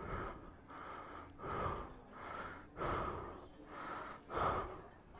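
A person breathing heavily close to the microphone, quick panting breaths about every half second.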